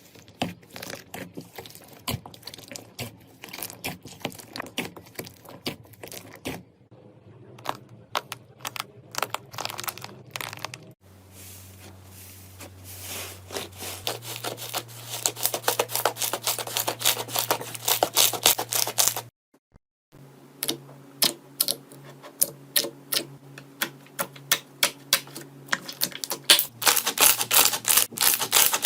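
Slime being squeezed, poked and stretched by hand, making dense runs of crackling, popping clicks. The sound comes in several short clips cut together, with a brief silent gap about two-thirds of the way through.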